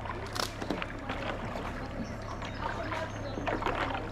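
Shallow river water lapping and splashing close to the microphone, with scattered small splashes and drips.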